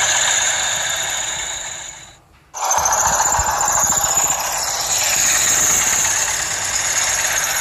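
Engine running steadily with a high whine. The sound fades out just after two seconds in and cuts back in abruptly about half a second later.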